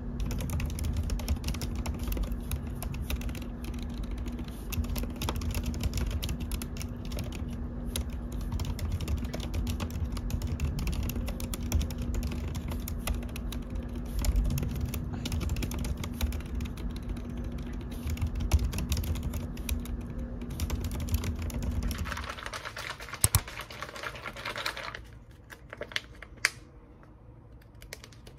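Fingers typing quickly on mechanical keyboard keys in a continuous clatter of key clicks, which stops about 22 seconds in. A few separate clicks follow near the end.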